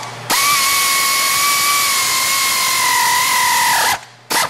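Air ratchet running in one steady pull of about three and a half seconds, a whine over hissing air, driving in a transmission-to-bellhousing bolt. Its pitch sags slightly just before it stops, and a short second burst follows near the end.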